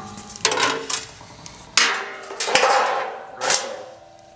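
Stamped-steel replacement torque box and toe board panels for a 1968 Ford Mustang clanking as they are handled, set down on a concrete floor and fitted together: about four knocks, each leaving a short metallic ring.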